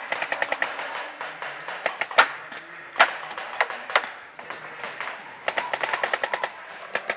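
Paintball markers firing across the field. A quick string of shots comes at the start and single sharper pops come about two and three seconds in. A longer rapid string of about ten shots a second comes near the end.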